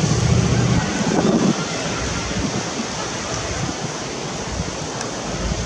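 Steady rushing noise, like wind blowing on the microphone, with a voice heard briefly in the first second and a half.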